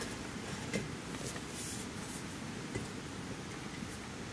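A few light clicks and a short scrape of small objects being handled, over a steady low background rumble.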